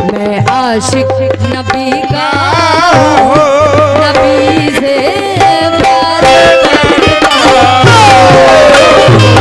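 Qawwali music: tabla drumming under harmonium chords held steady, with a melody line that wavers and slides in pitch, including a long downward slide near the end.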